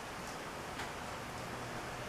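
A 19-inch Kenmore box fan running on high speed: a steady, even rush of air.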